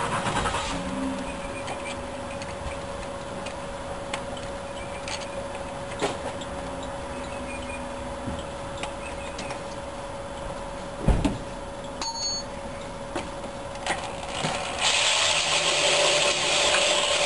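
Electric drill chucked onto a modified distributor shaft: small clicks and rattles as the chuck is tightened, a sharp knock about eleven seconds in, then the drill switches on near the end and runs steadily, turning the engine's oil pump to prime the engine with oil before its first start.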